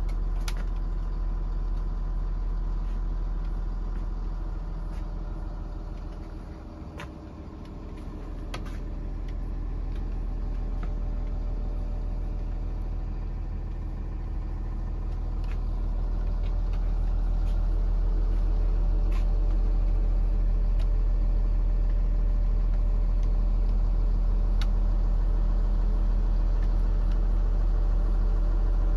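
An engine idling steadily, either the truck's own engine or an onboard generator, as a constant low hum. It dips in level about seven seconds in and grows louder from about seventeen seconds on, with a few faint clicks.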